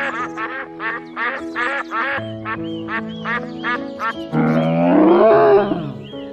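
Duck quacking in a quick run, about three quacks a second, over background music with held notes. About four seconds in, a louder, drawn-out animal call rises and falls for under two seconds.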